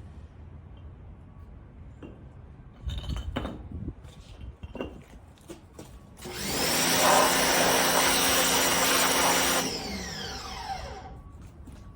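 Pressure washer starting up about six seconds in, running steadily with the hiss of its spray for about three and a half seconds, then cutting off and its motor winding down with a falling whine. Before it, a few faint knocks and scuffs.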